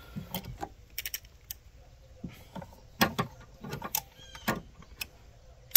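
Scattered, irregular metallic clicks and knocks of a socket, extension and ratchet being worked by feel onto a rear spark plug of a Dodge 3.8L V6.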